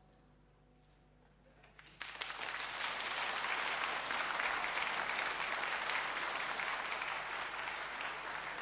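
An audience applauding. After about two seconds of near quiet, the clapping starts suddenly and carries on steadily.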